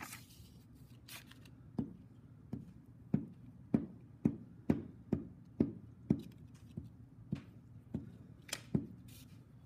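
Glue stick rubbed in quick strokes over paper on a tabletop, each stroke landing as a soft knock, about two a second. A brief rustle of the paper comes at the start and again near the end.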